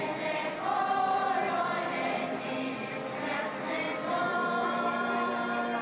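Choir of girls and women singing in sustained, held notes.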